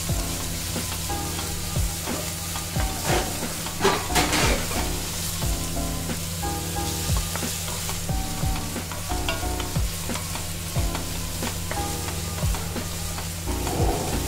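Chopped onions frying in hot oil in a stainless-steel kadai, sizzling steadily while a spatula stirs them, with scattered scrapes and taps of the spatula against the pan.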